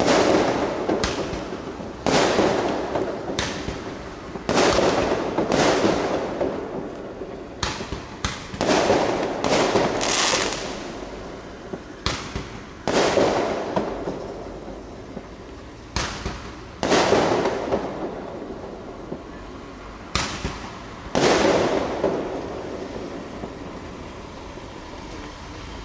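Aerial fireworks bursting, a sharp bang every one to two seconds, each followed by an echo that dies away over a second or two. The bangs stop a few seconds before the end, leaving the last echo fading.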